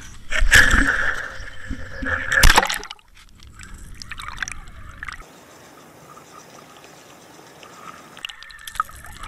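Water sloshing and gurgling around an underwater camera towed on a fishing line as it is pulled through and out of the water. It is loudest and busiest in the first three seconds, then drops to a quiet steady hiss.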